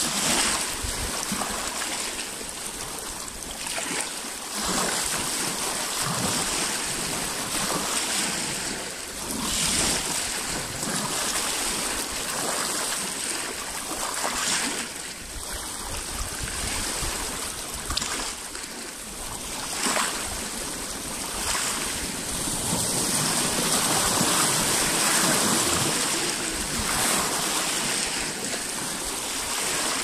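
Small lake waves lapping against a rocky shore, each one breaking in a brief splash every two to three seconds over a steady wash of water.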